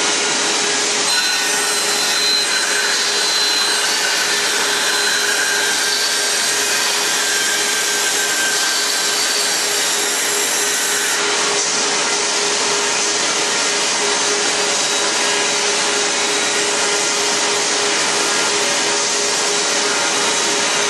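CNC band saw for cutting curved chair legs, running with a steady hiss of machine noise and a constant whine.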